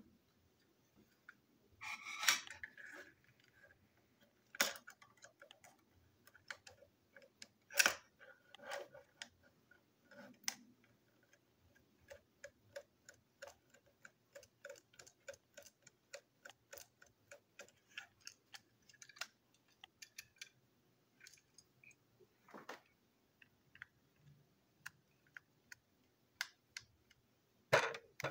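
Hard plastic toy-train parts and a metal screwdriver clicking and clacking as the engine is taken apart by hand: scattered light ticks, a run of quick ticks in the middle and a few louder clacks.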